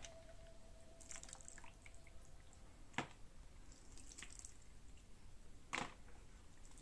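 Small drips and splashes of soapy water as wet toy cars are lifted from and handled in a metal tray, with two sharp clacks of the cars knocking in the tray, about three seconds in and again near the end.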